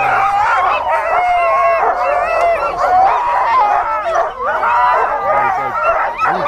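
Many sled dogs barking at once in a continuous, overlapping din.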